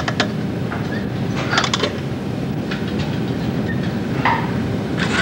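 A robot arm running as it sets a spring into a part in an assembly fixture: a steady mechanical whir with short clusters of rattling clicks at the start, about a second and a half in, and again near the end.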